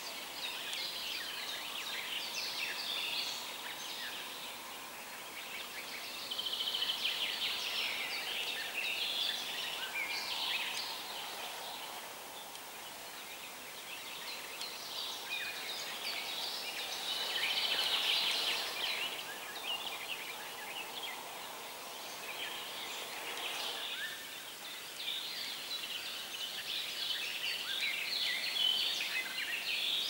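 Several birds singing at once, in overlapping bouts of quick chirps and trills, over a soft steady hiss.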